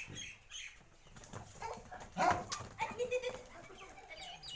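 Farmyard ambience: small birds chirping again and again, with a short, louder animal noise a little over two seconds in.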